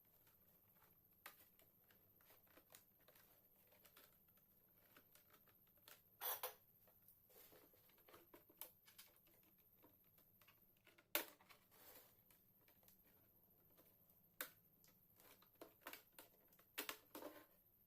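Faint, scattered clicks and taps of small plastic and metal parts being handled while a laptop is taken apart, with a few sharper clicks.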